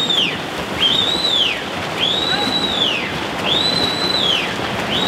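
Water churned and splashing as several swimmers race butterfly and freestyle in the pool, a steady rushing wash. Over it, a whistle-like tone rises, holds and falls again about every second and a half, four or five times.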